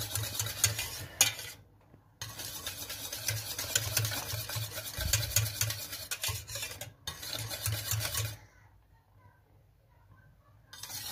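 Wire whisk beating and scraping round a stainless steel pot of thickening cake glaze, a rapid run of clinks against the metal. It breaks off briefly twice and falls nearly quiet for about two seconds near the end.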